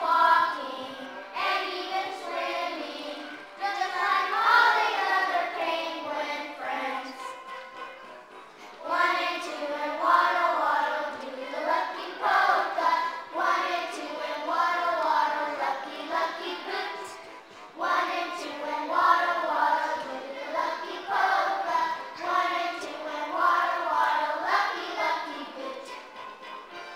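Children singing a song together in phrases, with short breaks about a third and two-thirds of the way through.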